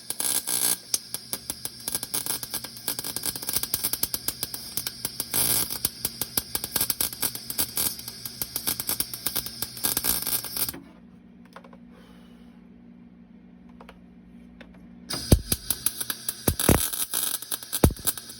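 Welding arc crackling and spitting in rapid, irregular clicks, typical of MIG welding steel. It stops for about four seconds midway, leaving only a low hum, then starts again with a few heavier knocks near the end.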